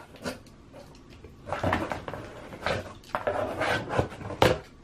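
A large cardboard subscription box being opened by hand. The flaps and packing inside rustle and knock in several bursts, with a sharp knock near the end.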